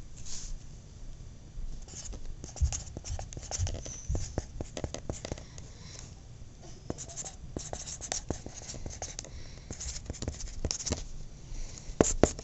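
A pen writing on paper: quick scratchy strokes and taps of the tip, coming in runs with short pauses.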